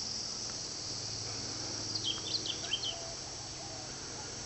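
A steady, high-pitched insect drone, with a short run of quick bird chirps about two seconds in.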